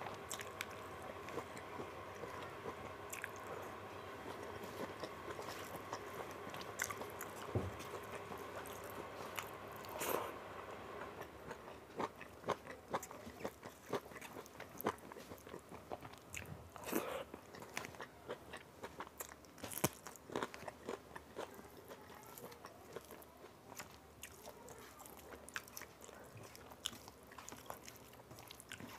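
Close-miked eating sounds of rice and dal eaten by hand: chewing and many short wet clicks, which come thicker after the first third.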